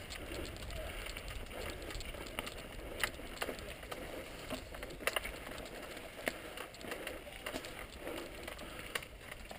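Mountain bike rolling fast down a dirt singletrack: tyres on dirt and loose stones, with irregular sharp clicks and rattles as the bike goes over bumps.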